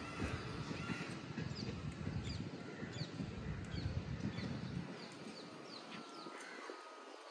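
Small birds chirping over and over, short high calls that each drop in pitch, over a steady background hiss. A low rumble underneath dies away near the end.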